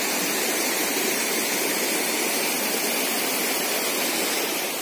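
Steady rush of a fast-flowing river current, an even hiss of moving water.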